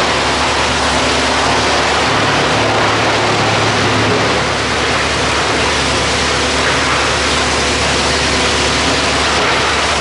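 YGX218 industrial drum wood chipper, driven by a 110 kW electric motor, running: a loud, steady, dense machine noise with a low hum underneath.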